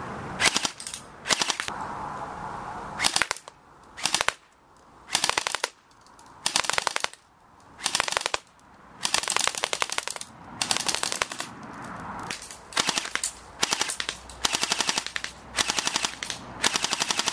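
Airsoft M4A1 rifle firing on full auto in over a dozen short bursts, each a rapid rattle of shots, some brief and some nearly a second long, with short pauses between.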